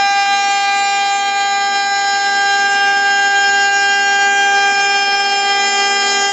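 The 1.5 kW spindle of a CNC wood router whines steadily while a 6 mm two-flute conical cutter mills through solid wood along a contour, taking 3 mm per pass.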